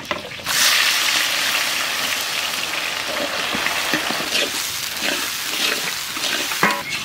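Sliced onions dropped into hot mustard oil in a kadai: a loud sizzle starts suddenly about half a second in and goes on as steady frying, with a spatula scraping through the onions as they are stirred.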